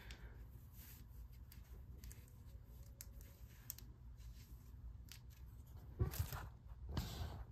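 Faint handling noise of a pendant necklace and clothing being adjusted: scattered light clicks and soft rustles, with two louder rustles about six and seven seconds in, over a low room hum.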